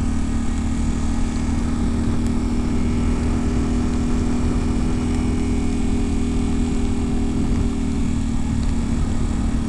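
Yamaha Ténéré 700's parallel-twin engine running at a steady, unchanging pitch while the bike cruises, over a steady hiss of wind and road noise.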